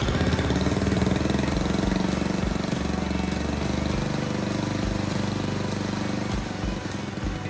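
Mini bike's small gasoline engine running steadily just after starting, on its first run after the engine, centrifugal clutch and chain were assembled; it is a little louder for the first couple of seconds, then settles.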